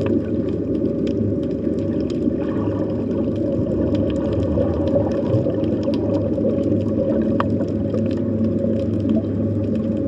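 Underwater ambient sound heard through a hydrophone: a dense, steady low rumble with a constant hum underneath, and scattered faint clicks.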